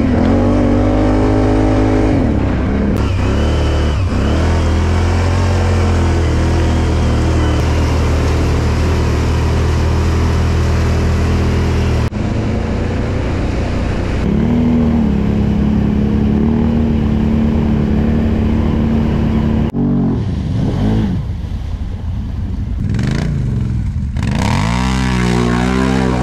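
Quad bike (ATV) engines running and revving, rising and falling in pitch, in several short segments that change abruptly about 3, 12 and 20 seconds in.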